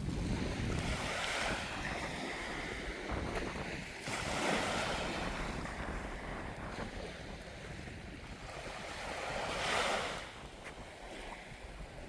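Sea waves breaking and washing up the beach, three surges a few seconds apart, with wind buffeting the microphone.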